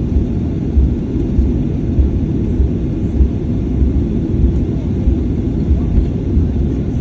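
Steady low rumble of a Boeing 737-800 heard from inside the passenger cabin, the engines and airframe running, with uneven low thumps underneath.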